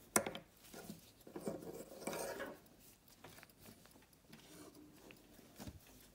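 Handling noise of an antique silver pocket watch being lifted off a clear plastic display stand with gloved hands: a sharp click just after the start, then about a second of rubbing and clattering, then a few light clicks.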